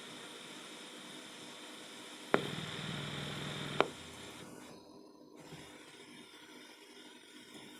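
Sears 8-track player hissing in a quiet gap between songs, with two sharp clicks about a second and a half apart and a low hum between them.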